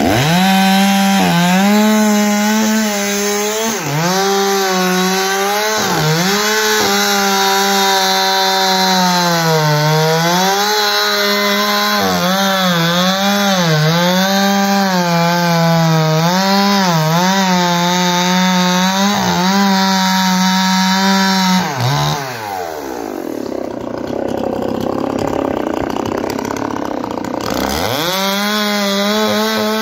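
Zomax ZM-6010 59 cc two-stroke chainsaw cutting through a palm trunk at full throttle, its pitch dipping and recovering again and again as the chain loads up in the cut. About 22 seconds in it drops to idle for several seconds, then revs back up near the end.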